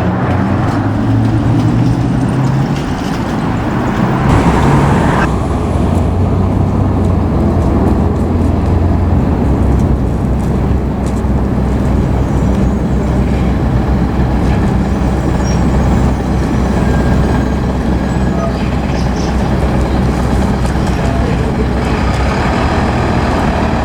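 A heavy fire vehicle's engine running steadily, a loud low rumble. A brighter rushing sound over it stops abruptly about five seconds in.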